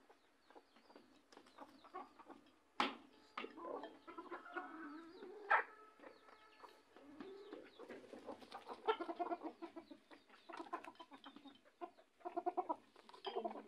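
A flock of domestic chickens clucking and calling, with quick runs of repeated clucks. A sharp knock sounds about three seconds in.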